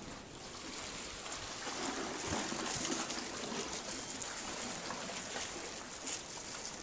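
Sea water washing and trickling in a narrow gully among coral shoreline rocks, swelling about two to three seconds in.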